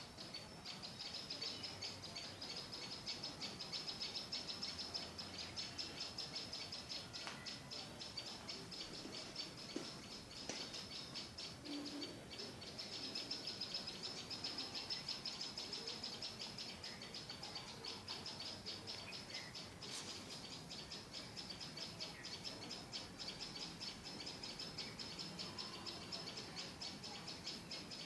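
Birds chirping: a steady, high-pitched, rapid chirping that carries on without a break, with a few faint clicks now and then.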